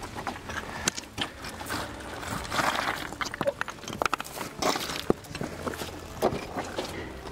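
Footsteps on loose scree: boots scraping over rock and stones clinking and knocking together at an irregular pace, with a longer scrape about two and a half seconds in.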